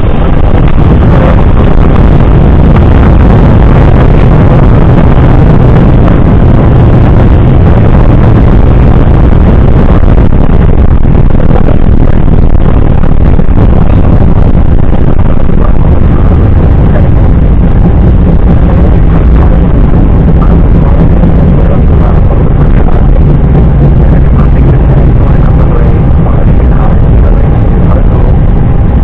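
Airbus A320 on its landing rollout after touchdown, heard inside the cockpit: a loud, steady, deep rumble of engines, rushing air and wheels on the runway.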